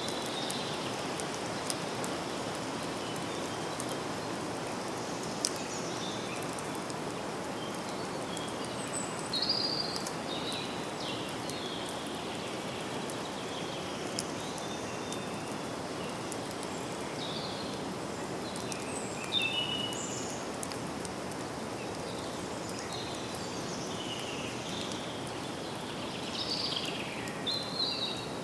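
Forest ambience: birds singing and calling now and then over a steady hiss of background noise, with an occasional sharp tick.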